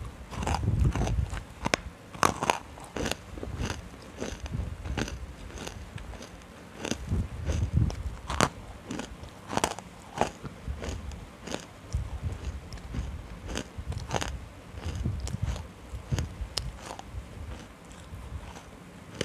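Dry, fully roasted nkumt chunks crunched and chewed right at a clip-on microphone: an irregular run of sharp, crackly crunches, several a second, over low chewing thuds.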